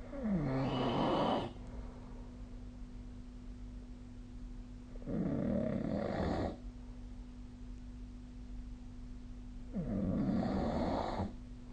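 A sleeping person snoring: three snores about five seconds apart, each lasting about a second and a half, over a steady low hum.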